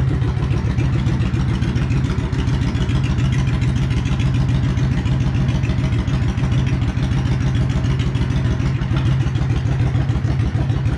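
Yamaha XVS650 Custom's air-cooled V-twin idling steadily, just after being started.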